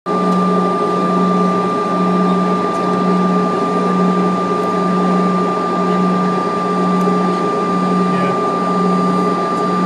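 Steady cabin hum inside a CRJ200 regional jet, with a constant high whine over a low drone that pulses about once a second.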